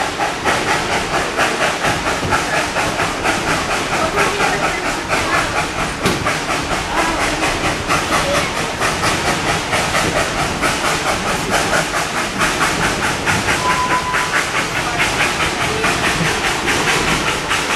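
Narrow-gauge steam train running steadily, heard from an open-sided passenger car: a constant hiss and rattle with an even rhythmic beat of about three a second.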